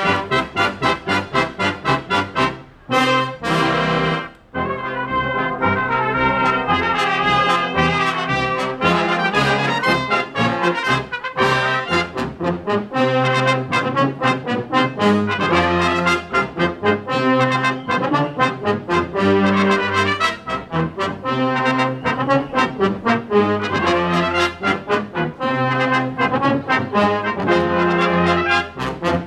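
A brass band playing a march: sustained brass chords over a steady drum beat in march time, with a brief break in the sound about three to four seconds in.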